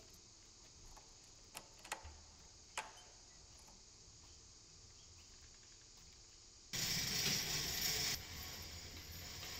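A few faint clicks, then about seven seconds in a metal roller shutter door starts rattling loudly as it is hauled up by its hand chain, loudest for the first second or so and then a steadier, lighter rattle.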